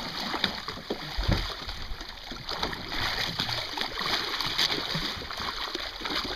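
Irregular splashing of sea water as a shark thrashes its tail beside the boat, over a steady rushing noise.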